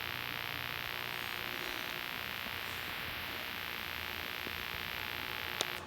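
A steady hiss, like static, that cuts off abruptly with a click near the end.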